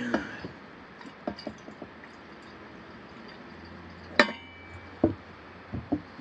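Metal clicks and taps from handling a Coleman 502 camp stove and its fuel can while filling it with white gas, with one sharp ringing metal clink about four seconds in.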